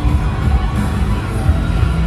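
Rock music playing with crowd noise mixed in.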